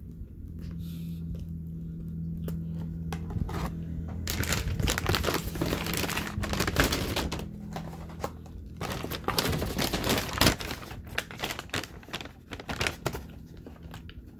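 Paper takeout bag crinkling and rustling as it is handled, starting about four seconds in with irregular crackles.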